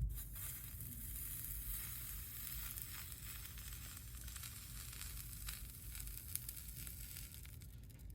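Hot soldering iron sizzling and crackling as it melts solder into gel-fluxed copper foil on stained glass, the flux boiling off. The sizzle starts suddenly as the iron touches down and stops as it lifts away.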